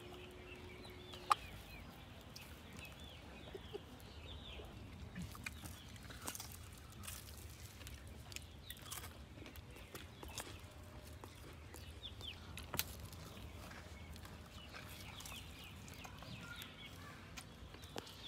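Chickens clucking faintly, with many short high chirps and a few sharp clicks, the loudest about a second in.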